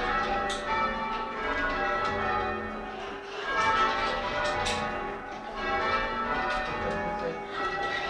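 Church tower bells rung full-circle from ropes in English change ringing, the bells striking one after another in a continuous, overlapping stream of strokes.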